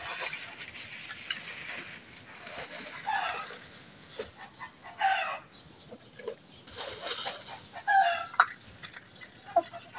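Chicken clucking: several short calls spaced a second or two apart, over the rustle and snap of dry twigs being handled as kindling.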